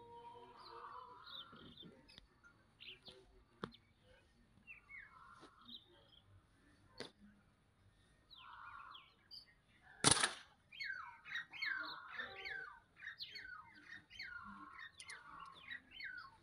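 A rubber-band slingshot is released about ten seconds in, giving one sharp snap that is the loudest sound. Small birds chirp throughout, and a quick run of short falling chirps comes right after the shot.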